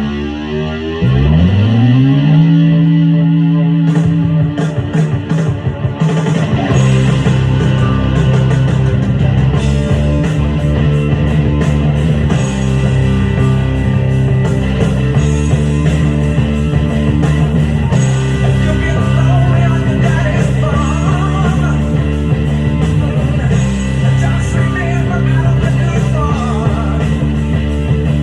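Hard rock with an electric bass played along. A guitar slides up in pitch about a second in and holds, and the full band with drums comes in about six seconds in.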